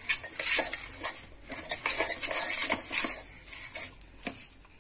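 Hand mixing a damp ground soya-chunk and lentil kabab mixture in a stainless steel bowl: steady, irregular scraping and knocking against the metal. The sound fades out near the end.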